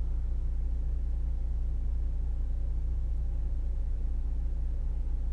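A steady low hum, strongest in the bass, with a few faint steady tones above it and nothing else standing out.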